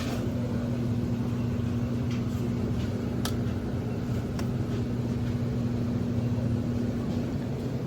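Steady low machine hum with a few faint clicks; one of its tones stops shortly before the end.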